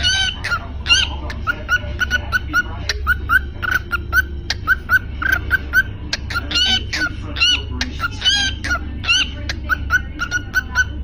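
Birds calling: a rapid series of short chirps, several a second, mixed with occasional higher, longer calls, over a steady low hum.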